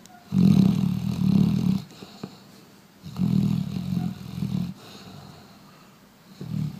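Newfoundland dog snoring: two long, low snores about three seconds apart, with quieter breathing between them and a third snore starting near the end.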